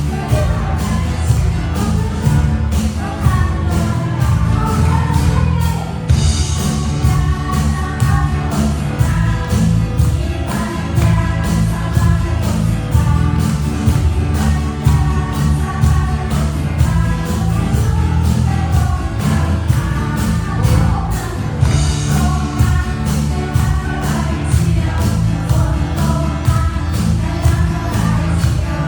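Christian worship song: singing over a band with a steady drum beat.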